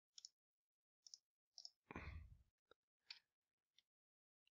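Faint computer mouse clicks, several spaced through the seconds, some close together in pairs, with a short soft noise about two seconds in.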